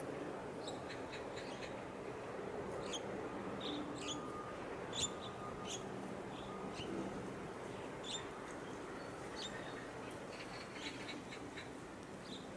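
Small birds chirping in short, high calls, several a second at times, over a steady low rumble of harbour and engine noise.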